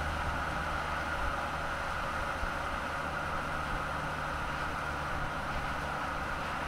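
Steady road noise of vehicles driving at speed: tyres rolling on asphalt with a low hum underneath, starting suddenly and holding level.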